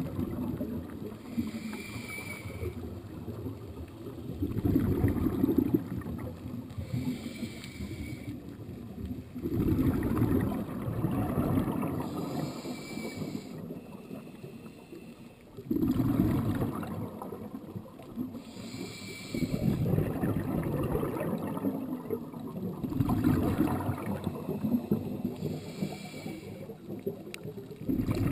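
Scuba diver breathing through a regulator underwater: a short hissing inhale with a faint whistle, then a longer low rumble of exhaled bubbles, repeating about every six seconds.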